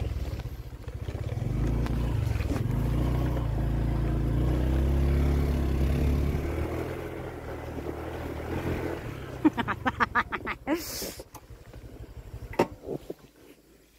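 Small motorcycle engine running steadily as it rides along a dirt track, fading away after about seven seconds. Then comes a quick run of sharp clicks about ten seconds in.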